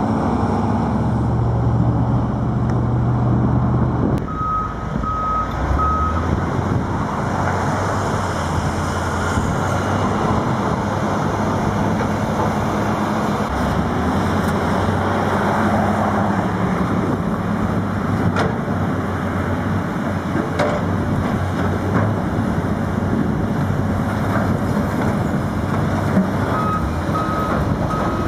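Diesel engines of a Case tracked excavator and a wheel loader running steadily under load during demolition work. A reversing alarm beeps at an even pace for about two seconds near the start, and again near the end.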